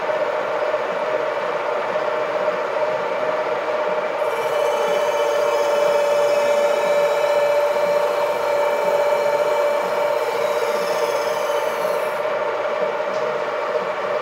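Vertical milling machine running, its end mill cutting into a wooden shotgun stock blank held in the vise: a steady motor tone under a rough cutting noise, with a higher whine added from about 4 to 12 seconds in.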